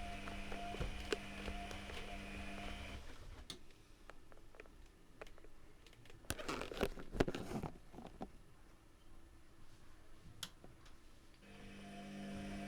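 Privileg Classic 30612 washing machine partway through a 95 °C boil wash: the drum motor's steady hum stops about three seconds in. A quieter pause with scattered clicks and a short swishing rush follows, and the motor hum starts again near the end, as the drum alternates between turning and resting.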